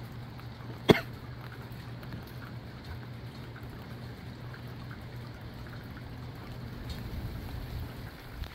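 Steady rain and gusty wind, with scattered small drips and one sharp tap about a second in.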